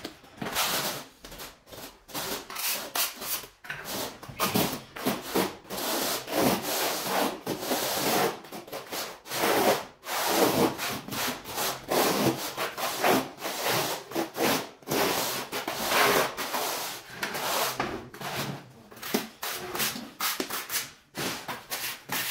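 Steel trowels scraping and spreading cement tile adhesive on a concrete floor, with a notched trowel combing ridges into it. The strokes are repeated, gritty and irregular.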